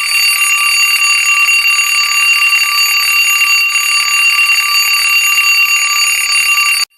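Alarm clock ringing loudly and without a break, a steady, bright metallic ring that cuts off abruptly near the end.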